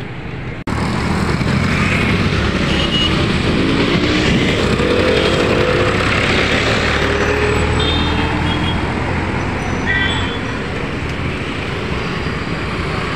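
Busy road traffic passing close by: a tractor pulling a water tanker, motorcycles and scooters, their engines running over a steady traffic hum. A brief dropout comes just under a second in.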